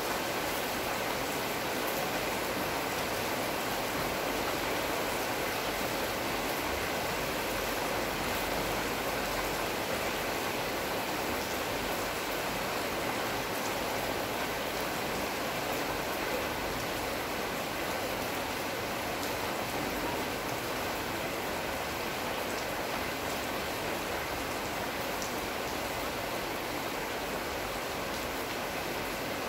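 Steady rain falling on trees and foliage, a continuous even hiss with faint scattered drop ticks.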